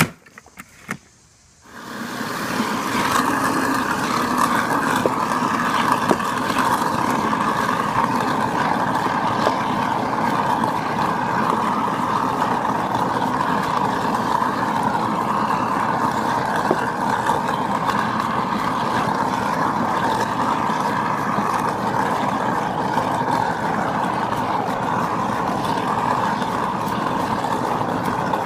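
Garbage disposal used as an apple scratter, switched on about two seconds in and then running steadily as chopped apple pieces are pushed down into it. A short sharp knock comes right at the start.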